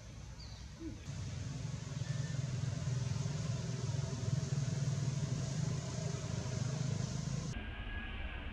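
Steady low hum of a vehicle engine running nearby. It starts about a second in and cuts off shortly before the end.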